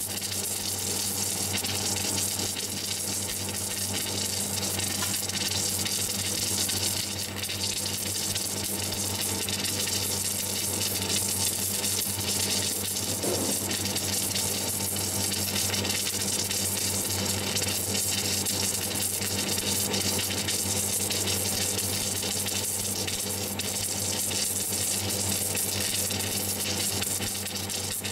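Steady hiss of an electric welding arc from an automatic pipe welding machine's torch laying a weld on a steel pipe, over a steady low electrical hum.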